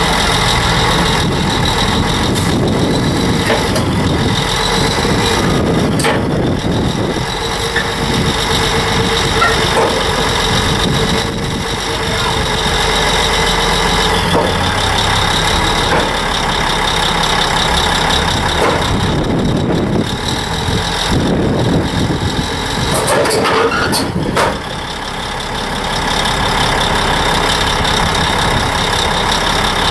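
Caterpillar D8 bulldozer's diesel engine running steadily as the crawler creeps up onto a lowboy trailer, with a few sharp knocks from the tracks and machine. The engine briefly eases off about 25 seconds in.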